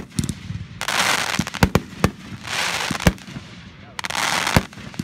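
Aerial fireworks going off: several sharp bangs of shells bursting, with stretches of crackling between them from the glittering stars.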